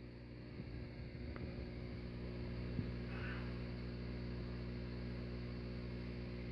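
Steady low electrical hum, a little louder after the first second or two.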